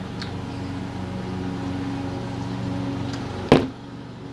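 A steady low hum, like a motor or appliance running, with a single sharp knock about three and a half seconds in. After the knock the hum briefly drops away.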